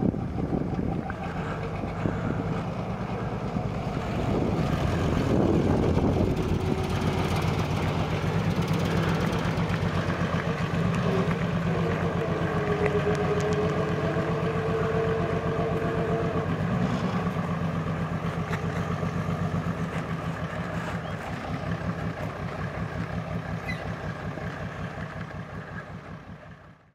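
Mercedes OM606 turbo-diesel straight-six in a mini pulling tractor running under way, rising in pitch about four seconds in and then running steadily. It grows fainter over the last few seconds.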